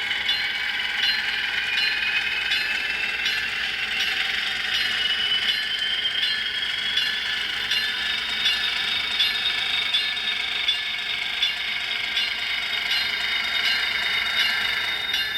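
HO scale model train running on the layout's track: a thin motor whine rising in pitch over the first half as it gathers speed, then holding steady, with a regular light clicking from the wheels and track.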